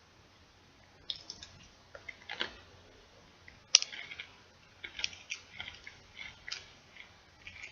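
Close-up, irregular crackling and crinkling of a bag of chips, in quick clusters from about a second in, with one sharp crack near the middle.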